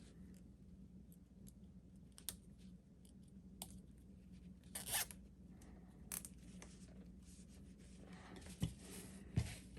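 A plastic zip tie being put around a pair of joined wires: scattered small clicks and a brief rasp about five seconds in as the tie is threaded and pulled, with two dull knocks near the end.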